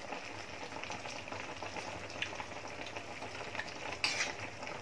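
Coconut-milk stew simmering in a wok, a steady bubbling hiss. About four seconds in, a spatula stirs through it with a brief scraping swish.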